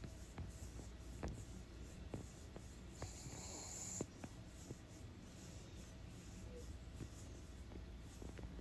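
A sleeping dog breathing, with one hissing breath about three seconds in and scattered small clicks.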